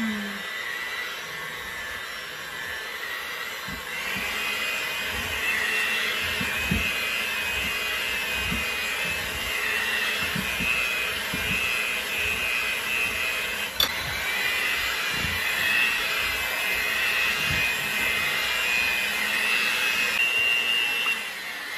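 Electric hand mixer running steadily with its beaters in thick cake batter, a constant whine that gets louder about four seconds in. A single sharp click about fourteen seconds in.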